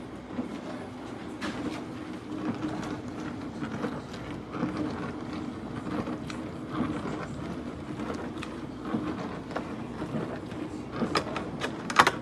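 A steady mechanical hum with irregular light clicks and knocks, and a quick cluster of louder clicks near the end.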